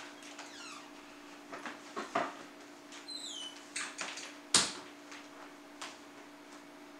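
Scattered small knocks and clicks of handling in a room, the loudest knock about four and a half seconds in, with a couple of brief falling squeaks around three seconds in, over a steady low electrical hum.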